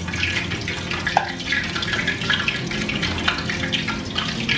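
Boiled pig's ears deep-frying in hot oil: a steady sizzle with scattered sharp pops and crackles as the moist ears spit and spatter, like firecrackers.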